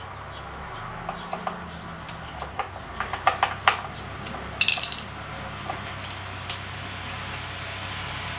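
Metal tools and screws clinking and ticking against a metal bracket as screws are fitted by hand, with the densest clatter and a bright metallic jingle a little before the middle, over a steady low hum.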